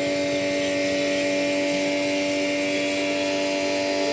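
A pressure washer running steadily: its motor and pump give an even hum, with the hiss of the water jet being sprayed into a car's exhaust tailpipe to flush out the muffler.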